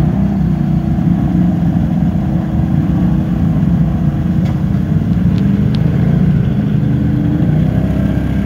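ATV engine running steadily at low revs under load, wading through deep muddy water.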